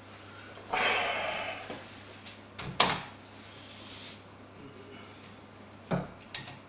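Handling noises over a steady low hum: a scraping rustle lasting about a second, then a sharp click, and later another click followed by a few small ticks.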